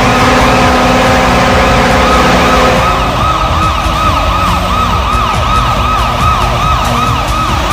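Washington Capitals arena goal horn after a goal: a steady multi-tone horn blast for about three seconds, then a repeating rising-and-falling siren wail, about two or three sweeps a second, over crowd noise.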